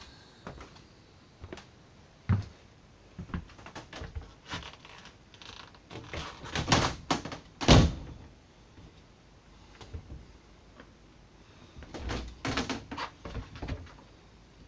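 RV cabinet doors and a shower door being opened and shut by hand. There are scattered clicks and knocks, a sharp thud about two seconds in, and two bunches of knocks and thuds in the middle and near the end, the loudest a little under eight seconds in.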